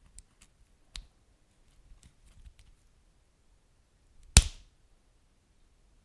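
Wood fire crackling: scattered small crackles over a faint low rumble, with a sharp pop about a second in and a much louder single pop a little past the middle.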